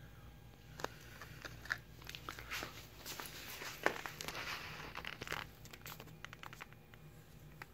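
Close handling noise: scattered light clicks and rustling, with the sharpest click about four seconds in, as the phone and the hanging digital scale rig for a line-strength test are handled.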